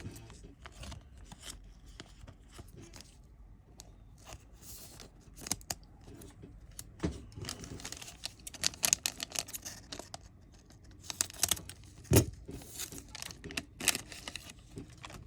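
A thin foil trading card booster pack being torn open and crinkled, with cards rustling and clicking as they are handled; a sharp tap about twelve seconds in.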